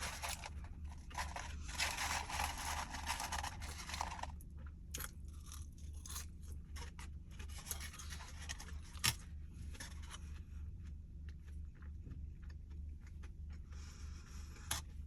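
Close-up eating sounds of fast food: crunching and chewing, densest for about three seconds near the start, then quieter with scattered sharp clicks.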